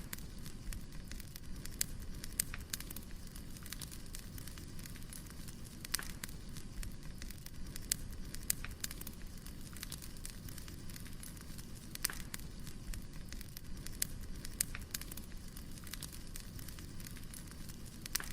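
Burning firewood crackling: a steady low rumble and hiss of flames, with irregular sharp pops and snaps scattered throughout, a few louder than the rest.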